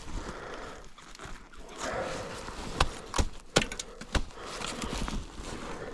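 Footsteps crunching in snow, with four sharp knocks in quick succession about halfway through.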